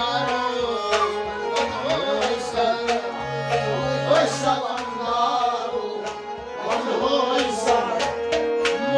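Live Kashmiri Sufi devotional song: a male voice singing over harmonium drones, with stringed instruments and hand-drum strokes keeping the rhythm.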